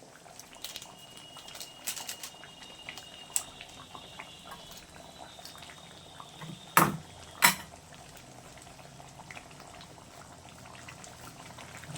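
Chicken curry bubbling as it simmers in a pan, with many small pops. There are two sharp knocks about seven seconds in.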